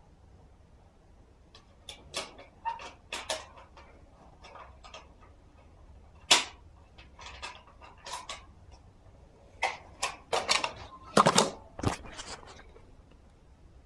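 Irregular sharp clicks, taps and knocks of things being handled close to the microphone, with a single loud knock about six seconds in and a dense cluster near the end as the camera is picked up and moved.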